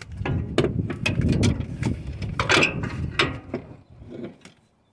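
Metal clicking, knocking and scraping as a replacement clutch rod is worked into place on a Freightliner truck. The sound eases off near the end.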